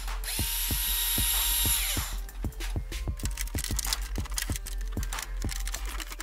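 Cordless drill-driver running with a steady whine for about two seconds, backing out the bolts that hold the car's head unit in its metal bracket, then stopping. Background music with a steady beat plays throughout.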